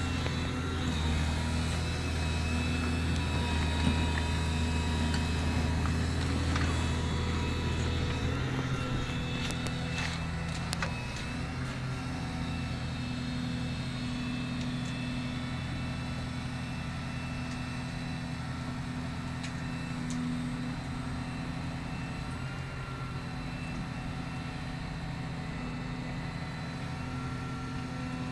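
Diesel excavator engines running steadily under load, with a deep rumble for the first eight seconds or so before the engine note eases off. A few faint knocks show through now and then.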